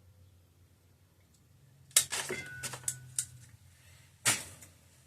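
Small tools and engine parts being handled on a workbench: a quick run of clicks and rattles about two seconds in, then one sharp click just past four seconds.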